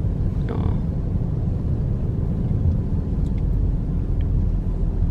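Car driving at road speed, heard from inside the cabin: a steady low rumble of engine and tyre noise. A brief voice sound comes about half a second in.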